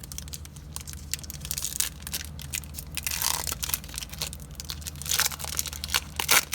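Foil trading-card pack wrapper being torn open and crinkled in the hands: a rapid, irregular run of crackles and rips, with the sharpest one near the end.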